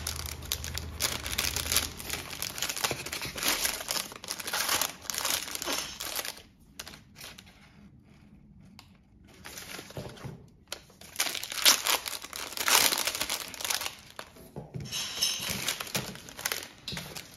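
Shiny wrappers of Magnum Classic ice cream bars crinkling and tearing as they are ripped open and peeled off the bars, with a quieter lull of a few seconds near the middle.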